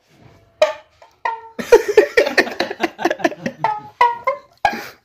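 Tumbi, a single-string Punjabi lute, being plucked: a few single notes, then a quick run of notes from about a second and a half in, then single notes again near the end.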